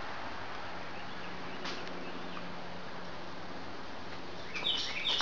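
Steady background hiss with a faint hum, then a bird starts chirping rapidly near the end, quick high chirps several times a second.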